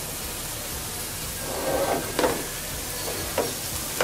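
Wooden spatula stirring wet rice and lentils through hot ghee and spices in a metal pot, over a low steady sizzle of frying. The spatula scrapes the pot and knocks against it a few times in the second half.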